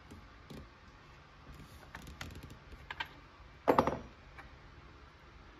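Scattered small clicks and knocks of hands working on a Husqvarna 372XP chainsaw on a workbench, with a louder clatter of several quick knocks about two-thirds of the way in.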